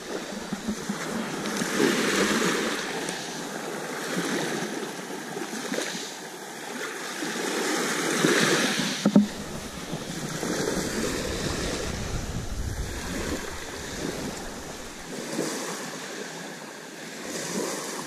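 Small waves breaking and washing up a pebble beach, the surf swelling and falling back every few seconds. A single sharp knock comes about nine seconds in.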